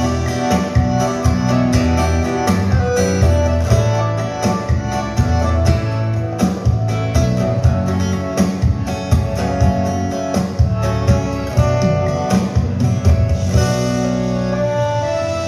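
Acoustic guitar playing an instrumental passage of a sertanejo song, with no singing.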